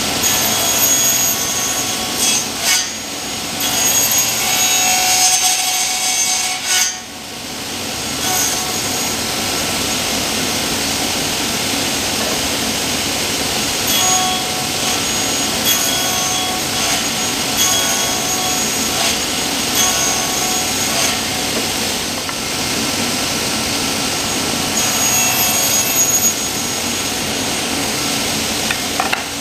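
A sliding table saw cutting through a slab of elm, the blade running steadily with a faint high tone over the noise of the cut. The sound dips briefly twice in the first seven seconds.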